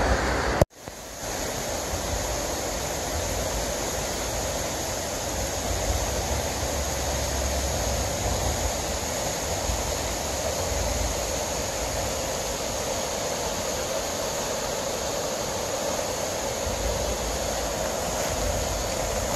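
Steady rush of a shallow river flowing over a stony riffle, starting after a brief sudden drop-out less than a second in.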